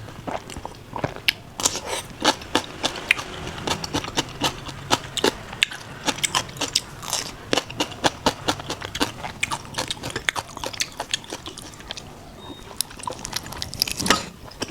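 Close-miked eating of blood sausage in pork intestine with pickled vegetables: steady chewing and biting, with many quick, irregular crunches and wet mouth clicks.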